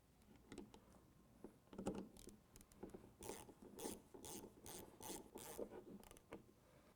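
Ratchet wrench with a 10mm socket tightening the service stops into the valve body: faint, short raspy ratcheting strokes, a few at first, then a steady run of about two a second from about three seconds in.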